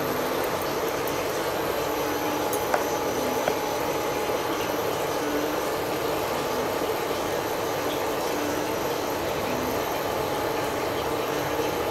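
Chocolate pancake batter sizzling in oil on a hot griddle: a steady hiss with a few faint crackles.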